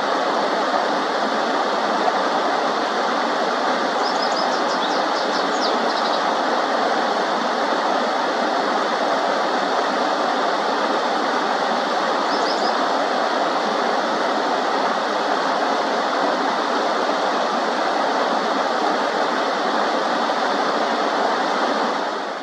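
Steady rushing of shallow stream water, with a few brief, faint high bird chirps about four to six seconds in and again about twelve seconds in.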